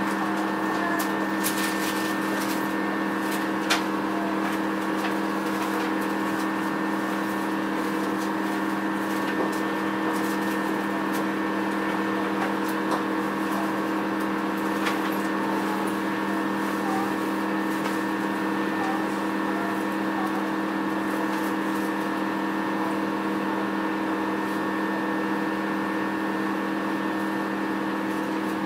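JR E233 series electric train standing at the platform with its doors open, heard inside the car: a steady electrical hum of several constant tones from its onboard equipment, with no traction motor sound yet and a few faint clicks.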